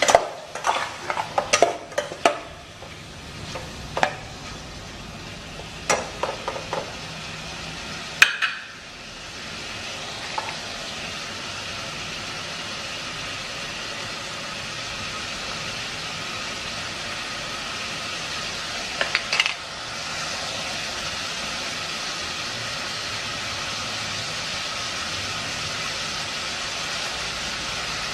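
A metal utensil knocks and scrapes against a cooking pot a dozen or so times. Then the food in the pot sizzles with a steady hiss that gets a little louder about twenty seconds in.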